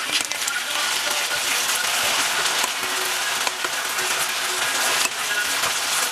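Sliced potatoes sizzling as they fry in a pan, with the scrape and occasional knock of a wooden spatula turning them.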